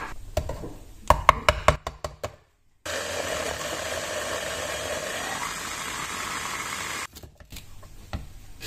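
Plastic clicks and knocks as a mini chopper's lid and motor unit are fitted, then the electric chopper runs for about four seconds, blending lemon pieces with sugar. Its pitch rises about halfway through, and it cuts off suddenly.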